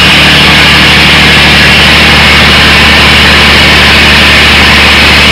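Tata 697 (Mercedes OM 352-type) six-cylinder diesel engine driving a generator, running loud and steady under electrical load during a load check, with the alternator output near 49 Hz.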